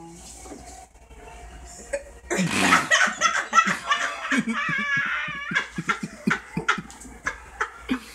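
Loud laughter breaks out about two seconds in, opening with a breathy burst and ending in a run of short, quick laugh pulses.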